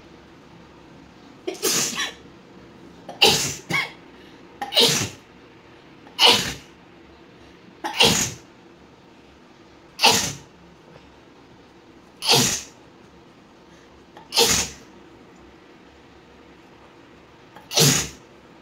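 A woman sneezing forcefully again and again, about ten sharp sneezes, one every two seconds or so, with a longer pause before the last one.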